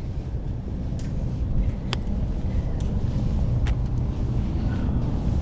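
Wind buffeting the camera microphone as a steady low rumble, with a few sharp clicks.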